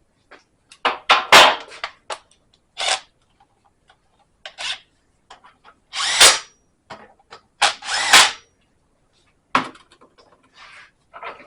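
Handheld power tool run in several short bursts with pauses between, running in the differential cover bolts on a GM 8.5 rear axle.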